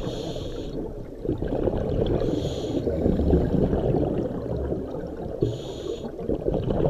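Scuba breathing heard underwater through a regulator. A short hiss comes three times, about every three seconds, typical of inhaling through the demand valve. Between the hisses runs a low, crackling rumble of exhaled air bubbling out.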